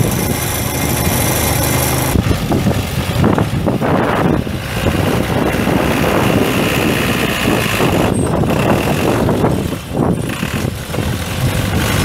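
Case G207D four-cylinder diesel engine of a 1979 Case 580C backhoe running steadily.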